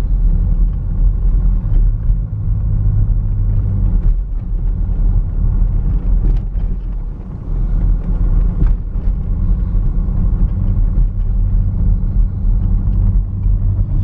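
Steady low rumble of road and engine noise inside a moving car's cabin, on a broken-up road surface, with a few light knocks.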